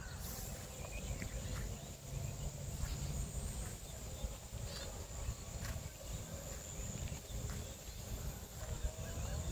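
Quiet background: a low rumble and a faint steady high-pitched whine like an insect, with a few soft clicks from handling metal parts.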